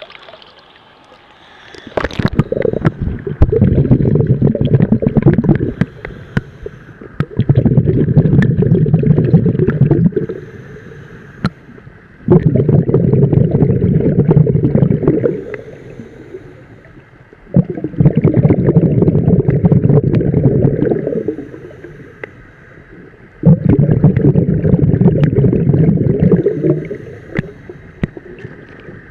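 A scuba diver's exhaled breath bubbling out of the regulator, heard underwater: five loud bubbling bursts, one every five to six seconds, each lasting three to four seconds, with quieter gaps between them for the in-breaths.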